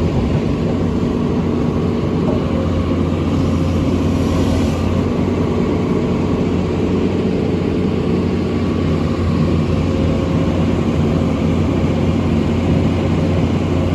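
Sany 215 excavator's diesel engine running steadily with a deep hum as the machine works.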